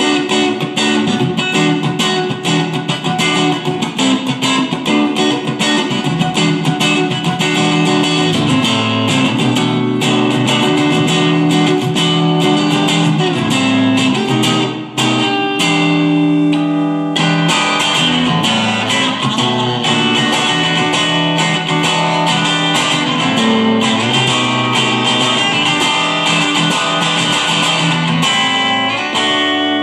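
Electric guitar, a Chinese-made Stratocaster copy, played through an amp: a continuous passage of quickly picked notes and runs.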